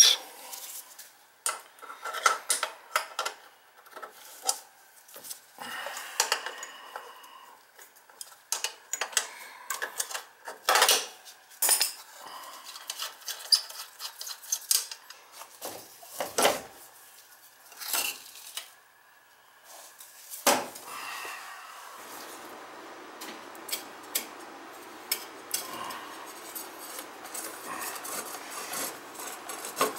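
Metal clinks and clanks of an adjustable wrench and metal fittings being worked loose on an oil burner, irregular and sharp, with a softer, steady rustle of handling through the last third.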